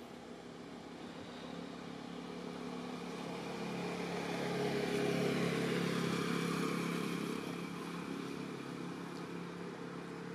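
A motor vehicle passing by: its engine noise swells to its loudest about five seconds in, then fades away.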